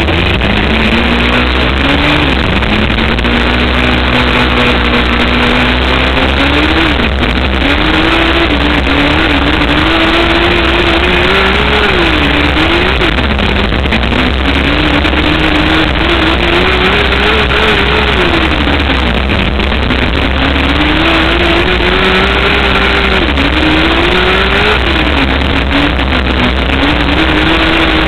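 Onboard sound of a wingless 600 micro sprint car's 600cc motorcycle engine running loud on a dirt oval. Its revs climb and then fall again every five to six seconds as the car powers down the straights and backs off into the turns.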